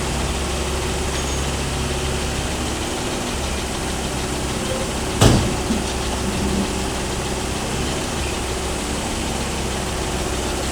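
Hitachi 138 excavator's diesel engine running steadily. About halfway through comes one sharp knock, the loudest thing heard, followed within the next second or so by two lighter knocks.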